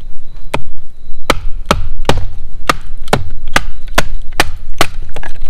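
A Reiff F6 Leuku fixed-blade knife being batoned into a log: a wooden baton strikes the knife's spine about ten times, roughly two sharp blows a second, driving the blade down to split the wood.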